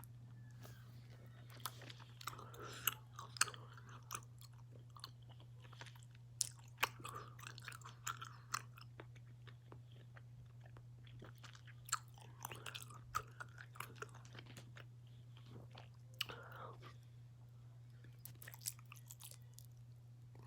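Close-up wet chewing and biting of a giant gummy bear: irregular sticky mouth clicks and smacks, with breathing between, over a steady low hum.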